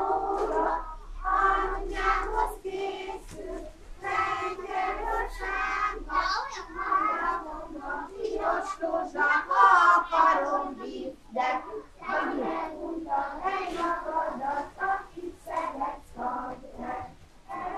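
Young voices singing a song, with the melody held on long notes throughout.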